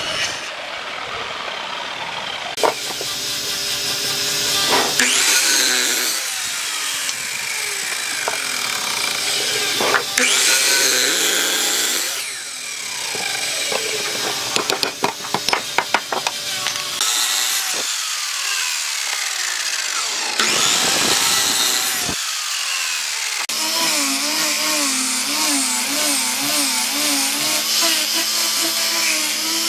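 Electric sliding miter saw making several cuts through wooden blocks, its motor winding up and spinning down between cuts. Near the end an angle grinder with a sanding disc runs steadily, sanding a board.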